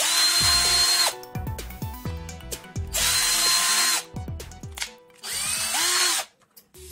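iBELL CD12-74 12-volt cordless drill driver run free three times in bursts of about a second, its motor whine starting and stopping sharply with the trigger. The third, shorter burst has a wavering pitch.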